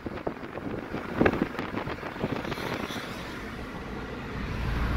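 Road noise inside a moving car: a steady low rumble with wind on the microphone and a few light knocks, growing a little louder near the end.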